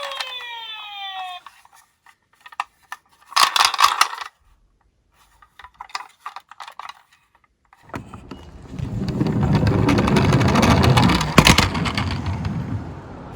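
A toy ambulance's electronic siren sounding in falling tones, cutting off about a second in. Then a few clicks and a short metallic clatter of die-cast minicars. From about eight seconds in a toy car rolls down a slope with a steady rumbling that lasts about five seconds, with a sharp knock near the end.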